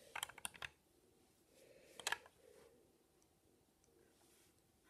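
Plastic LEGO bricks clicking as they are handled and pressed together: a quick run of small clicks just after the start and another short pair about two seconds in, faint in between.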